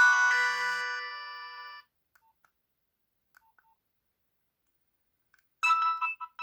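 Nokia 6030 ringtones playing from the phone's speaker: one ringtone's last held chord fades out within about two seconds, then near silence, then the next ringtone starts about five and a half seconds in with a quick run of short, bright repeated notes.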